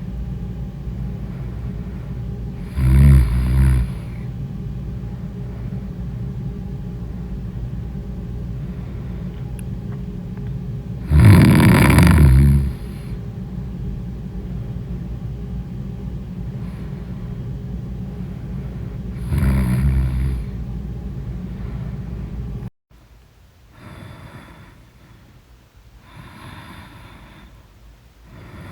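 A person snoring: three loud snores roughly eight seconds apart over a steady low rumble. About 23 seconds in, the rumble cuts off and softer snoring breaths follow every two to three seconds.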